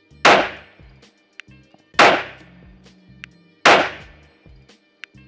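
Background music with a heavy beat: a loud, sharp hit with a long echoing tail about every second and three quarters, over a stepping bass line.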